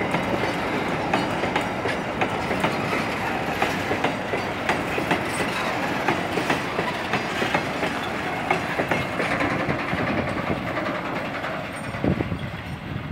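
Loaded cement hopper wagons of a freight train rolling past close by: steady rumbling with a clickety-clack of wheels knocking over the rail joints. The sound fades toward the end as the wagons move away, with one louder clank about twelve seconds in.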